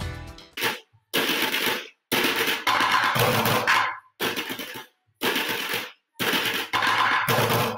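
Drumsticks beating rapid rolls on upturned orange plastic five-gallon buckets, in bursts of about a second with short breaks between them. The music fades out just before the drumming starts.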